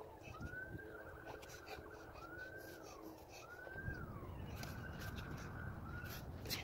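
A faint siren wailing, its tone rising, holding and falling again about every second and a half, with a few light clicks and knocks over it.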